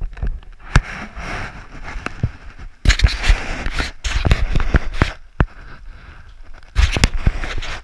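Fabric rustling and scraping close against a body-worn camera's microphone, in irregular bursts with scattered sharp knocks and clicks.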